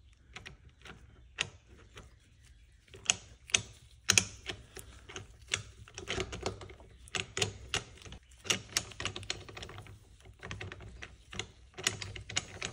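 Small steel helical pinion gears of a helical limited slip differential clicking and clinking against one another and the differential case as they are worked loose by hand. The clicks come irregularly, a few at first and thick and fast from about four seconds in.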